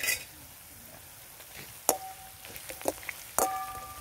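Metal spatula knocking and scraping against an iron kadai while stirring sliced onions and chillies frying in oil, the pan ringing briefly after the harder knocks. A short hiss at the very start, then a few sharp knocks from about two seconds in, over a faint sizzle.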